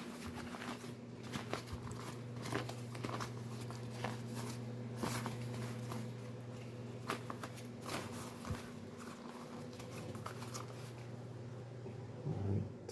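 Plastic inflatable swimming armbands being handled and turned over, giving scattered crinkles and light taps, with a louder rustle near the end. A steady low hum runs underneath.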